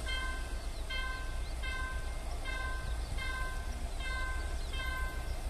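Level crossing warning signal sounding a short electronic chime over and over, about once every 0.8 seconds, as a train approaches, over a low steady rumble.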